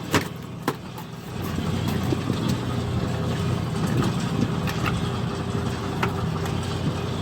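Fishing boat's engine running steadily, with a few sharp knocks in the first second; just over a second in, the engine noise grows louder and stays up.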